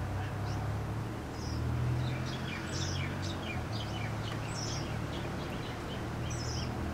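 Small birds chirping, many short high chirps throughout, over a steady low background hum.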